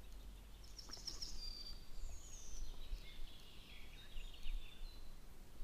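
Faint birdsong: short high chirps and falling whistles over a low steady rumble.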